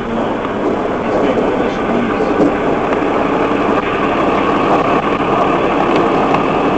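Steady vehicle engine and cabin noise inside a police patrol car, picked up by its dash cam microphone.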